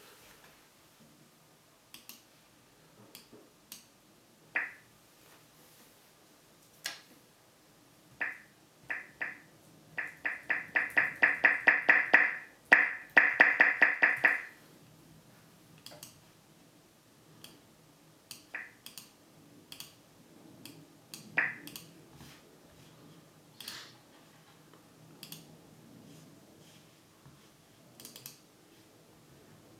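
Short, high electronic blips from a computer's speaker: single ones here and there, then a fast run of them for about four seconds starting near ten seconds in, with scattered light clicks throughout.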